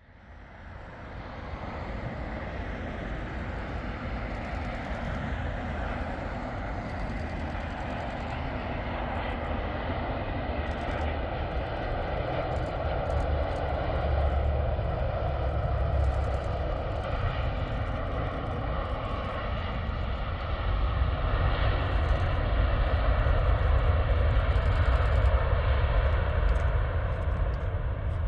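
Airbus A350-900's Rolls-Royce Trent XWB turbofans on landing approach: a steady jet rumble with a faint whine, growing louder as the aircraft comes closer.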